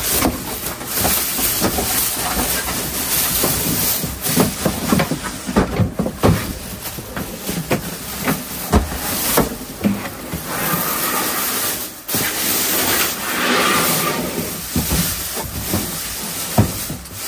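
Loose plastic bag crinkling and rustling loudly as it is pulled off a new MaxxFan Deluxe roof vent fan, with a few knocks as the fan's plastic housing is handled.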